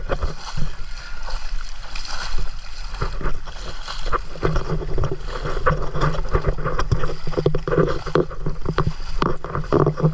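Water splashing and sloshing around legs wading through shallow sea, in irregular strokes, with a steady low rumble underneath.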